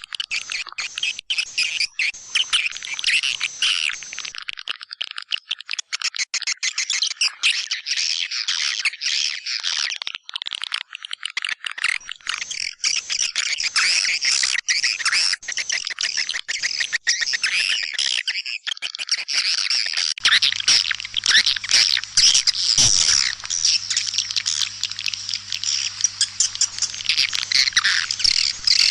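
Swiftlet lure call: a dense, unbroken mass of rapid high chirps and twitters of white-nest swiftlets, the recording played to attract swiftlets to a nesting house. About two-thirds of the way in, a low steady hum joins it.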